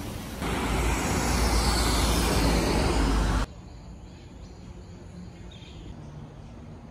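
Loud rushing outdoor noise with a deep rumble, starting abruptly and cutting off suddenly about three and a half seconds in. A much quieter steady outdoor background follows.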